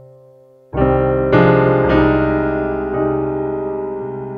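Slow piano music: a soft note fades out, then a loud, deep chord is struck a little under a second in. Further chords follow and ring on, slowly fading.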